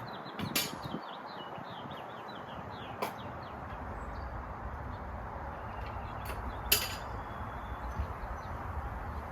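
Small birds chirping in short falling notes in the first few seconds, over a steady outdoor background hum. Three sharp metallic clicks or knocks, the loudest near the end.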